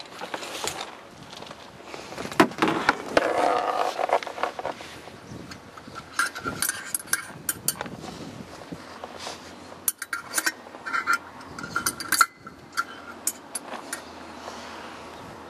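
Light metallic clinks, taps and rattles with some rubbing as the oil tank cap and dipstick of a gyroplane's Rotax engine are handled and wiped with a rag during an oil-level check. Clusters of short ringing clinks come about six and ten seconds in.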